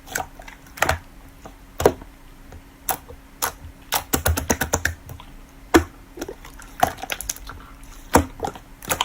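Slime being pressed and worked by hand, giving irregular sharp clicks and pops, with quick runs of clicks about four seconds in and again near the end.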